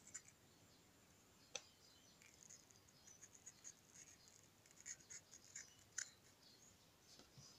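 Faint crisp scratching and small clicks of a thin carving knife cutting into watermelon flesh, hollowing out a groove around the carved flower's centre. A sharper click comes about a second and a half in and another near six seconds.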